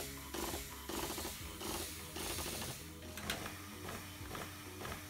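A 24-volt diaphragm pump running with a steady mechanical hum, forcing water through a misting nozzle with a pulsing hiss of spray.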